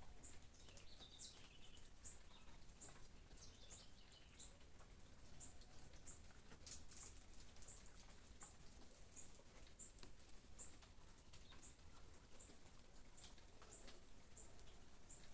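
Faint high-pitched bird chirps repeating about twice a second over a soft, steady hiss of rain, with a few lower chirps in the first few seconds.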